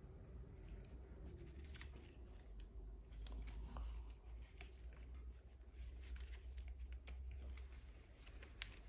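Faint rustling and crinkling of paper banknotes being handled and counted, with scattered small clicks, over a low steady room hum.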